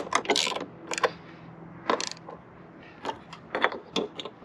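Ratchet socket wrench clicking as it snugs a Torx bolt on a roof-rack crossbar foot: a quick run of clicks at first, then single sharp metal clicks about a second apart.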